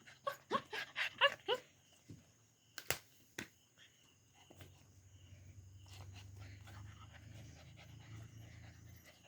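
Long-haired German Shepherd puppy giving a quick run of about six short, high yips. A couple of sharp knocks follow.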